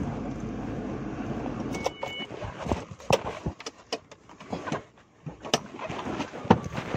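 The Ford Escape's 2.3-litre four-cylinder engine idling steadily, then switched off with the ignition key about two seconds in. A short electronic warning chime sounds right after, followed by scattered clicks and knocks of the key and the driver climbing out of the car.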